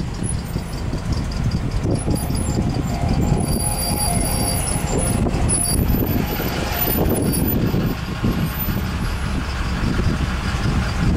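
Car running in traffic, heard from inside the cabin: a steady low rumble of engine and road noise.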